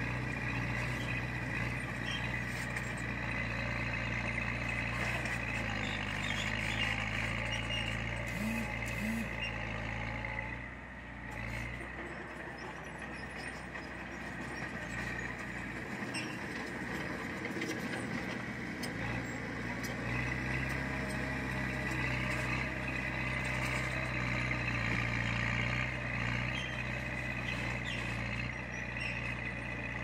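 Heavy diesel earthmoving machinery running steadily. Its engine eases off about eleven seconds in and works harder again from about twenty seconds.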